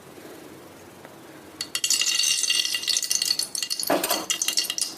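Hot oil in a pressure cooker starts sizzling loudly about a second and a half in, as the spices go into the hot oil, with a few clinks of utensils against the pot.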